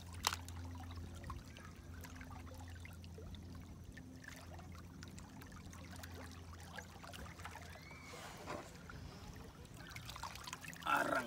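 Faint trickling and lapping of shallow water stirred by a hand groping among rocks and mussel shells, with one sharp click near the start.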